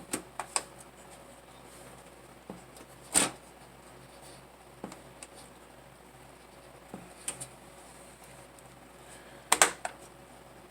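Scattered sharp clicks and taps of hands working inside a desktop PC case, releasing and pulling out RAM modules, with the loudest clicks near the end.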